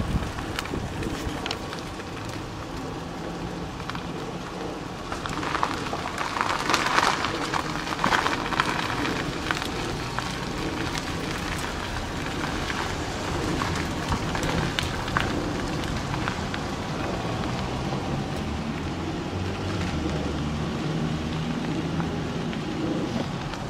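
Car driving, heard from inside: a steady rush of road and wind noise, with many small crackles and ticks from the tyres, louder about five to nine seconds in.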